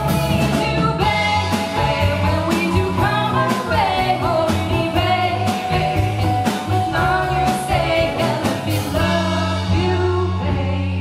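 Live band with two singers over drum kit and electric bass, playing the closing bars of a pop-rock song; about nine seconds in the drums drop away, leaving held notes under the voices.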